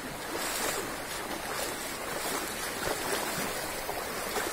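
Steady rush of fast-flowing, muddy river floodwater.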